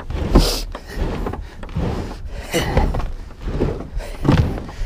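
Plastic kayak hull and paddle knocking, scraping and splashing as the kayak is shoved off into the water: a run of irregular thuds and scrapes, the loudest about half a second in.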